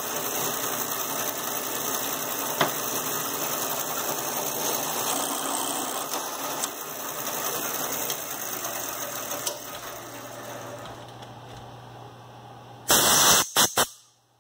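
Drill press running with a reversing tapping head, tapping 8-32 threads into a flintlock tumbler's axle: a steady mechanical running noise that eases off after about ten seconds. About a second before the end comes a short loud burst with a few sharp clicks, after which it drops away.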